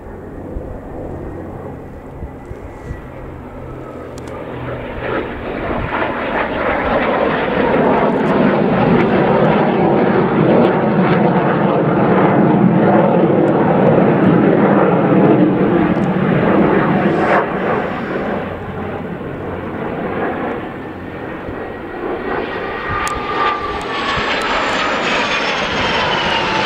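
BAC Strikemaster jets' Viper turbojets. The jet noise builds to its loudest as one jet passes overhead around the middle, eases, then swells again near the end, with a high whine falling in pitch as the pair come through.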